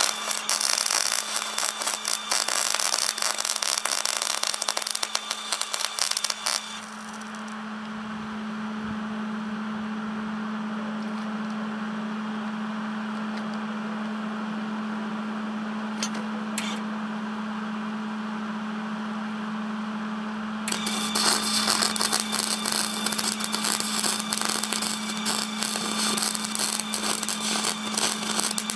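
Wire-feed welder arc crackling and sizzling in two runs, one of about seven seconds at the start and another over the last eight seconds, with a steady low hum in between.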